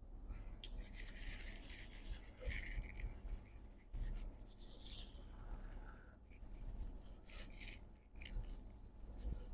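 A brush scrubbing a laptop logic board clean, in several stretches of scratchy rubbing: a long one near the start and shorter ones after.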